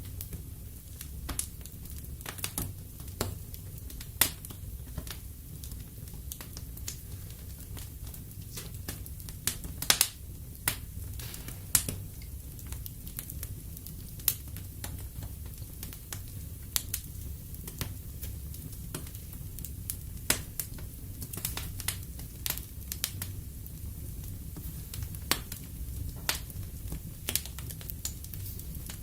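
Wood fire in a fireplace burning with a steady low rumble of flames and irregular sharp crackles and pops from the burning logs, a few louder pops standing out.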